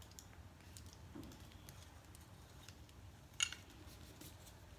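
Faint handling of small wound-care items, mostly near-quiet room tone with scattered light ticks and one sharper click about three and a half seconds in.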